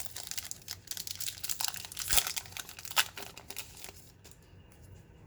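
Crinkling and crackling of a foil trading-card pack wrapper and cards being handled, dying down about four seconds in.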